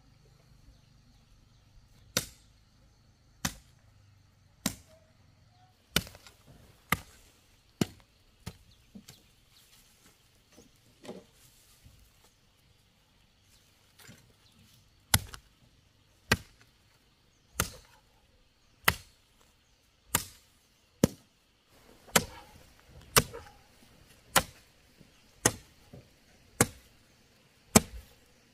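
Sharp chopping strikes on wood, one at a time, about one a second, with a pause of a few seconds midway.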